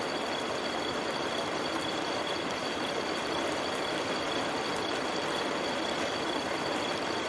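Steady rain falling in a forest, an even hiss with no breaks. Two faint steady high tones run through it.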